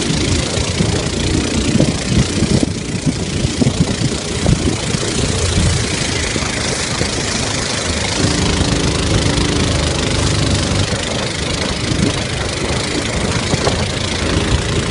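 Small boat engine running steadily under the rush of wind and water. Its low hum stands out more plainly from about eight seconds in.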